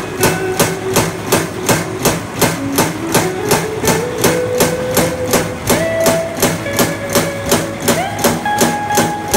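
Background music: a melody over a steady, quick beat.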